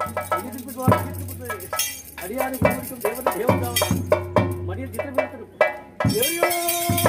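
Theyyam ritual percussion: rapid drum strokes with the clink of small metal hand cymbals beating along. A long held tone comes in near the end.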